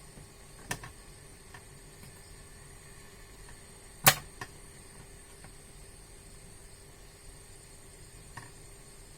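A few sharp clicks and taps of small tools being handled on a workbench, the loudest one about four seconds in, over a faint steady hum.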